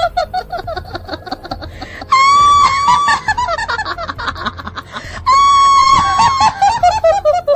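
A woman's shrill ghostly cackle, laid on as a horror effect. It is a run of quick giggling notes that fall in pitch, broken twice, about two and five seconds in, by a long high shriek-like laugh.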